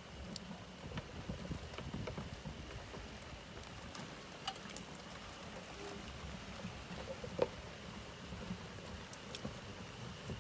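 Side-by-side utility vehicle driving slowly over dry grass and rough ground: a steady crackling rustle under the tyres with scattered rattles and one sharp knock about seven seconds in.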